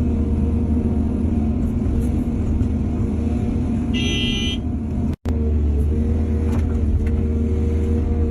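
Heavy diesel earthmoving machinery running steadily with a deep, even hum. There is a brief high-pitched tone about four seconds in and a split-second dropout just after five seconds.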